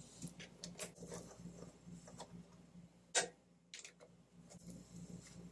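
Faint ticking of a ratchet wrench with a 10 mm socket turning a bolt out of a mower's air box, a run of small clicks with one sharper click about three seconds in.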